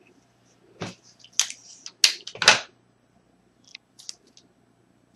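Double-sided sticky tape being handled and pressed onto the skin: several short, sharp crackling, ripping noises, the loudest a pair about two seconds in, then a few faint clicks.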